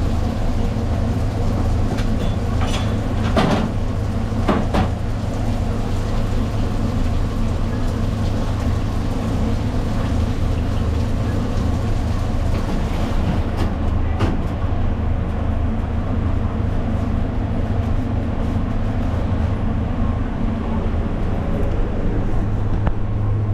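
Steady, loud low mechanical hum, with a few sharp clicks or knocks early on and once near the middle.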